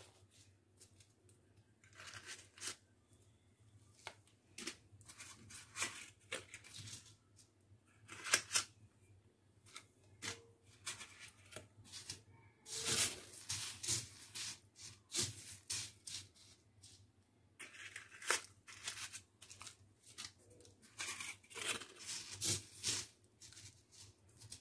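A thin plastic sheet crinkling and dry crumbs crunching as cookies are pressed by hand into crushed crumbs, in short, irregular rustles.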